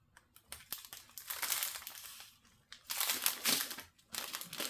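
Small plastic packets of diamond-painting drills crinkling and rustling as they are handled and sorted, in three spells after a few light clicks.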